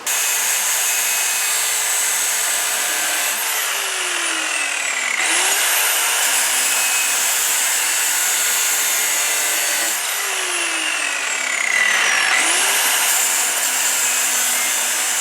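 Angle grinder cutting off a metal pulley-guide remnant on a mower deck. Its whine slides down twice as the disc bogs under load, then quickly climbs back as the pressure eases, about five seconds in and again about twelve seconds in.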